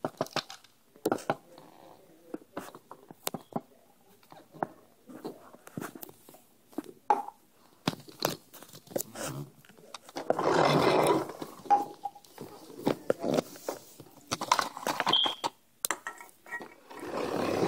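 A plastic toy garbage truck and a cardboard box being handled and knocked about on a wooden floor: scattered clicks and knocks, with a longer rustling scrape about ten seconds in and again near the end.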